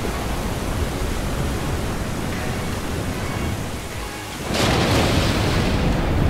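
Ocean surf sound effect: a steady rush of breaking water with a deep rumble, swelling louder about four and a half seconds in as a wave crashes.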